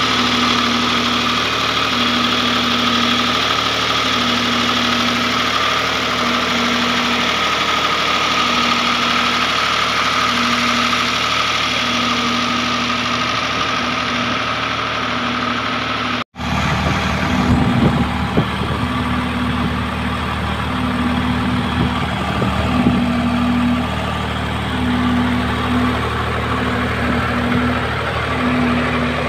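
Engine of a pump set running steadily as it pumps floodwater out. There is a brief dropout about halfway through, after which it keeps running.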